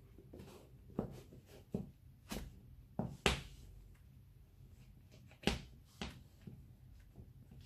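Black leather lace-up shoes being handled and put on: about seven short knocks and taps of the shoes against the floor, the loudest about three seconds in and again about five and a half seconds in, with soft rustling of laces and clothing between them.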